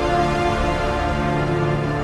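Background music: slow, sustained tones with a low bass drone, in the manner of a moody soundtrack.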